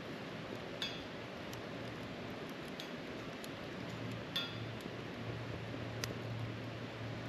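Wood fire burning in a folding steel fire-box stove, crackling with a few sharp pops, the sharpest about a second in and just past halfway, over a steady hiss.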